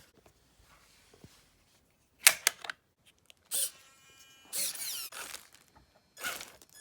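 Small servos in a Traxxas TRX4 High Trail whirring in several short bursts as its two-speed transmission and locking differentials are shifted by radio.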